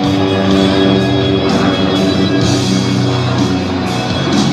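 Rock music with held guitar chords that change about every second.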